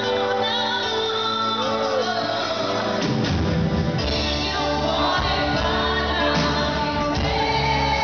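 Live pop band playing with singing, a pop song performed on stage with keyboards, electric guitar and drum kit. The sound grows fuller and heavier in the low end about three seconds in.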